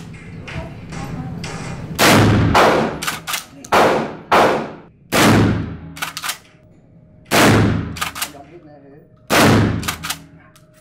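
Kel-Tec KSG 12-gauge pump shotgun fired in an indoor range: about six loud shots a second or two apart, starting about two seconds in, each followed by the quick double clack of the pump being racked.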